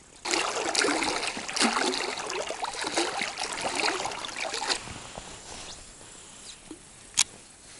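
River water rippling and splashing against an inflatable raft as it drifts through a small riffle. It is loud for about four and a half seconds, then dies down. A single sharp click comes near the end.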